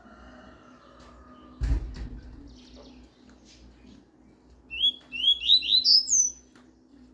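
Double-collared seedeater (coleiro) singing a short phrase of quick rising whistled notes near the end, the last note higher. A dull thump comes about two seconds in.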